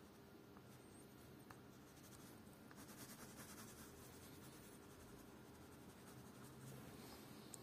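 Brown coloured pencil shading on paper, a faint scratching of the lead across the sheet.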